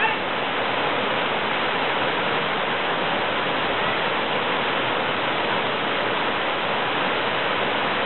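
Waterfall: water falling in many thin streams down a moss-covered rock face and splashing into the pool below, a steady rush that does not change.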